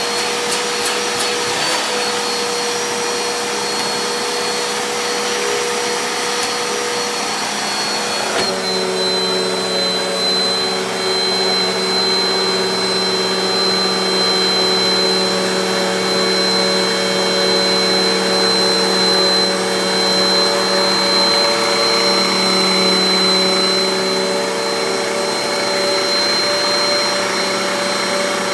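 Hoover Nano Lite Cyclonic upright vacuum running at full power with a high, steady motor whine, just after spinning up, during a suction test. About eight seconds in the tone shifts suddenly, its pitch dropping slightly as the airflow load changes.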